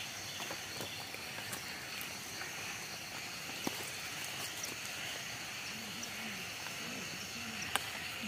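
Steady, high-pitched insect chorus of a dry forest, several pitches held together. It is broken by scattered small clicks and snaps of twigs and leaf litter underfoot, with a sharper snap about four seconds in and another near the end.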